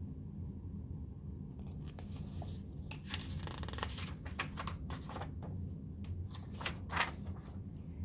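Paper rustling and crackling as the pages of a picture book are turned and handled, starting about a second and a half in, with a few sharper crackles; a low steady hum underneath.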